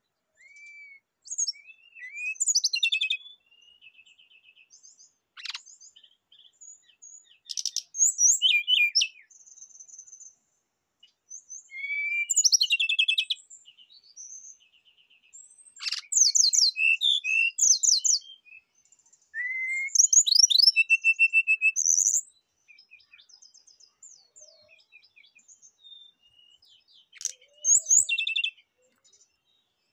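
Brown-chested jungle flycatcher singing: phrases of rapid, high repeated notes mixed with short whistled slides, each a second or two long, separated by pauses.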